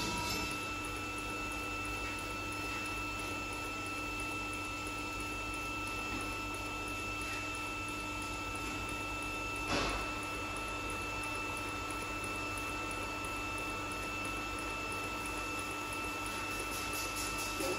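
TIG welding arc on stainless steel, running on a pulse setting: a steady hum with high whining tones over a hiss. A single short knock about ten seconds in.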